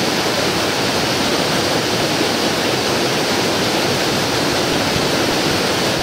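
Small river waterfall pouring down onto the rocks and the bathers standing beneath it: a loud, steady rush and splash of falling water.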